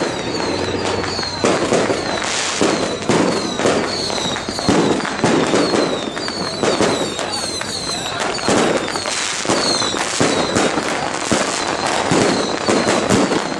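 Strings of firecrackers crackling continuously, with heavier bangs every second or so. A short high falling whistle repeats throughout.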